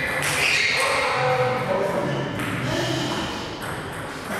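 A few taps of a table tennis ball under indistinct voices echoing in a large hall.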